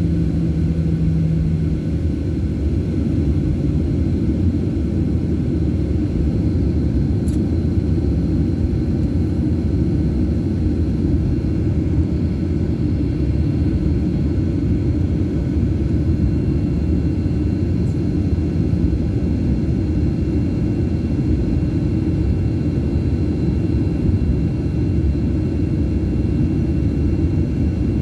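Steady low rumble of a jet airliner's engines and airframe heard inside the cabin while the plane taxis, with a low hum that stops about two seconds in.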